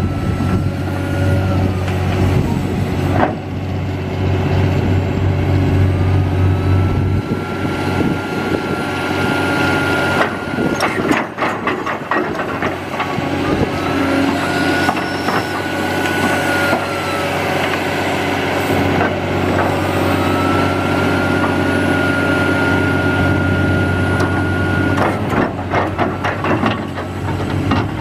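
Link-Belt 700LX hydraulic excavator's diesel engine running steadily under load, with a whine that rises, holds for a few seconds and falls away about four times as the boom and bucket are worked. Several knocks and clanks come in clusters partway through and near the end.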